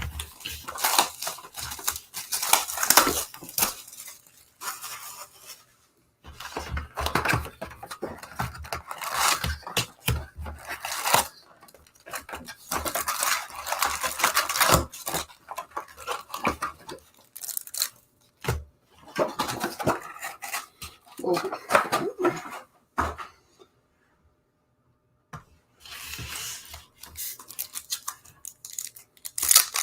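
Trading card packs from a 2018 Topps Chrome hobby box being torn open, their foil wrappers crinkling and the cards being handled, in irregular bursts of rustling with a short pause near the end.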